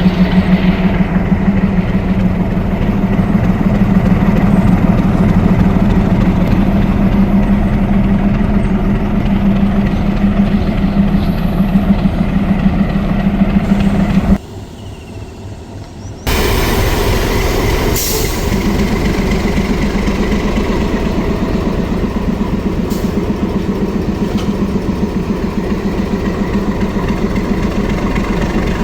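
Locomotive running at close range, a loud steady throbbing hum with a strong low drone. The sound drops away for about two seconds around the middle, then comes back.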